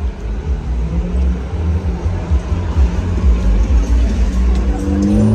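Street traffic: a car engine running close by over a deep, uneven rumble, its pitch rising steadily near the end as it accelerates.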